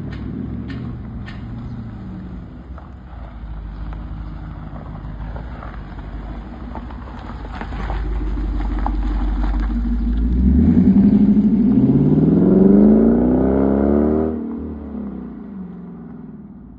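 2026 Dodge Durango engine and exhaust idling with a steady low drone, then revved once about ten seconds in: the pitch climbs steeply for a few seconds and falls back as the revs drop toward idle.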